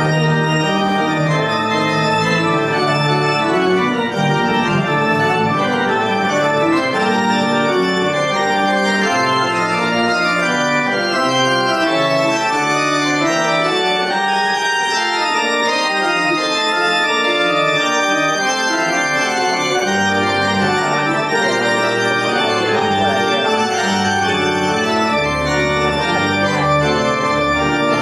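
Church pipe organ played without pause, a continuous stream of sustained chords and moving notes. Deeper bass notes come in about twenty seconds in.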